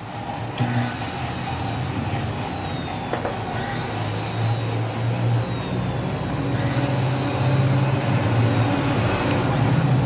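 Wolf Gourmet blender motor running on its disassembled base through a preset program, a steady hum that grows louder over the second half. It runs the program without throwing the "Er" error after repair.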